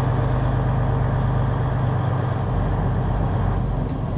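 Semi truck's diesel engine running steadily under way, a low even hum with road noise; the rumble eases slightly near the end.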